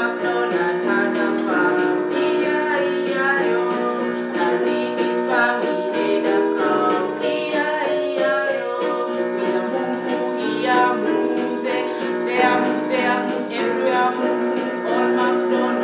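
Music: a woman singing a short children's song over a plucked-string accompaniment.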